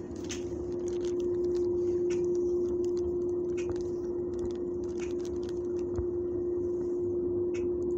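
Steady mechanical hum at one pitch over a low rumble, with scattered small clicks and rustles close by.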